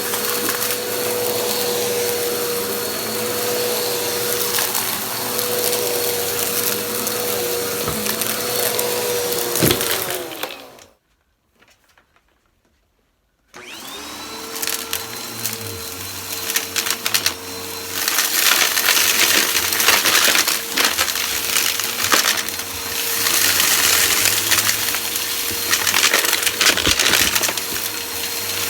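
Vacuum cleaner running with a steady motor whine, switched off about ten seconds in and winding down to silence. It is switched back on a few seconds later, its whine rising to speed. Then dense crackling and crunching of debris being sucked up.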